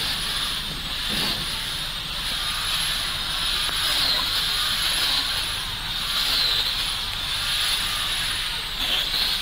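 Steady hiss of road traffic on a wet street in the rain, with a faint high tone that rises and falls about once a second.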